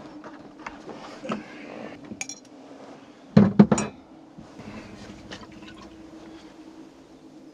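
Glass clinking as a bottle and small drinking glasses are handled, with a few sharp clinks about two seconds in and a burst of loud knocks and clinks about three and a half seconds in.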